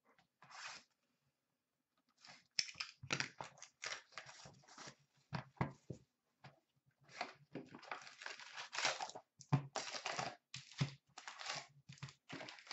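Plastic wrap being torn off a sealed cardboard box of hockey cards and the box opened: a dense run of irregular crackling tears and crinkles, starting about two seconds in.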